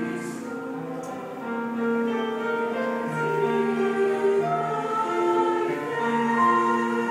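Mixed church choir singing a sacred anthem in long held chords, heard as played back through a television's speakers.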